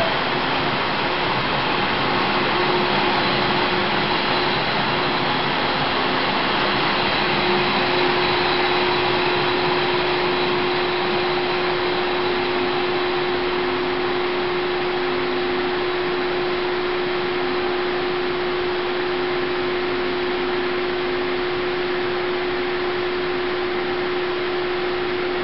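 Steady rushing hum of an underground railway station, with the last coaches of a departing diesel-hauled train rolling away and fading into the tunnel. A steady hum sets in about eight seconds in and holds.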